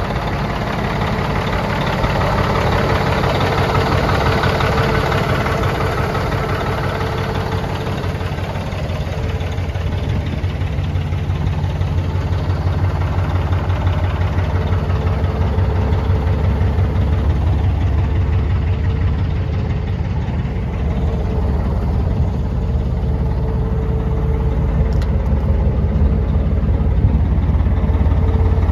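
Cummins diesel engine of a 2007 Peterbilt 386 tractor idling steadily. The engine-bay clatter is stronger at first, and the deep exhaust note grows stronger toward the end.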